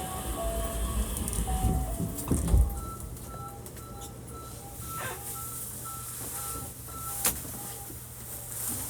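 At the platform, the departure melody finishes in the first second or so. Low thuds follow, the loudest about two and a half seconds in. From about three seconds, a two-note chime repeats evenly, alternating a higher and a lower tone, over a steady low hum, with one sharp knock about seven seconds in.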